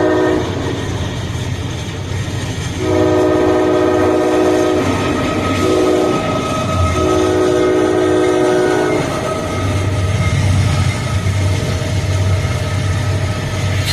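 Locomotive air horn with several notes sounding a chord, blowing the grade-crossing pattern: a blast ends just after the start, then a long blast, a short one and a long one, the crossing warning signal. A low rumble of the train runs on under the horn.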